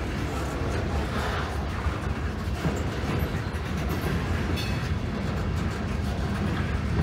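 Freight boxcars rolling past at a road crossing: a steady rumble of steel wheels on the rails as the train is shoved along.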